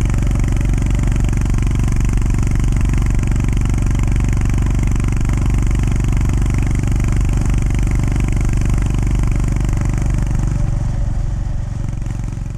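Honda GB350S's air-cooled single-cylinder engine running steadily while riding, with a steady hiss above it; the sound fades away near the end.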